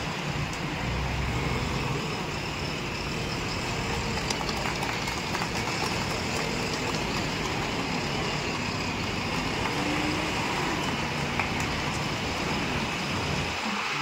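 JCB 3DX backhoe loader's diesel engine running steadily as the machine manoeuvres and works its front loader bucket.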